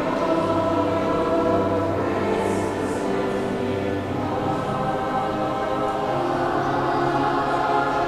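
Mixed-voice high school choir singing, with long held chords.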